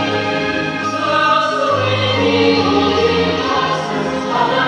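Choir singing a Christmas carol in sustained, layered chords, played back from a Hallmark Christmas cassette tape on a cassette deck and heard through home stereo speakers.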